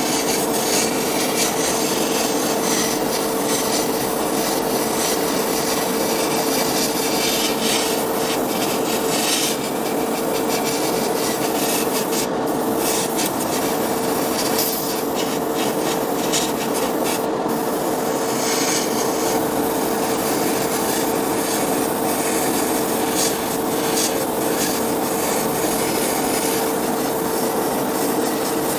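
Continuous abrasive rubbing, as in sanding or filing a surface, with a steady hum running underneath.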